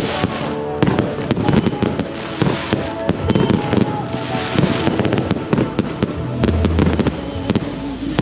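Fireworks bursting and crackling overhead, with many sharp bangs in quick succession and music playing underneath.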